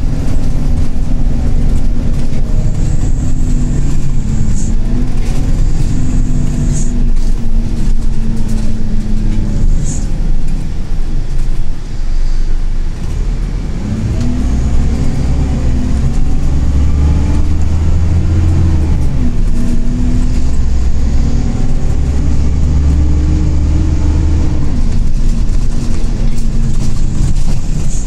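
Scania K114 coach's 11-litre six-cylinder diesel engine, heard from inside the bus while under way, its pitch rising and falling several times as it pulls through the gears. The engine eases off briefly about twelve seconds in, then pulls harder with a deeper rumble.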